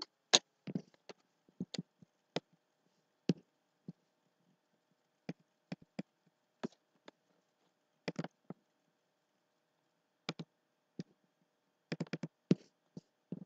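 About twenty short, sharp clicks and taps at irregular intervals, some in quick pairs and a tight cluster near the end, over a faint steady hum.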